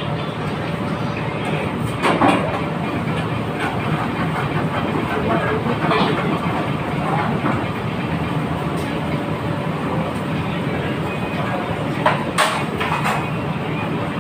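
Steady loud background noise of a working commercial kitchen, a continuous even roar, with a few sharp clanks about two, six and twelve seconds in.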